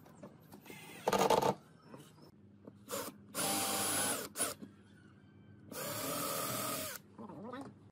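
Cordless drill running in two steady bursts of about a second each, boring holes into the wooden frame, its motor giving a steady whine; a shorter loud burst from a power tool about a second in.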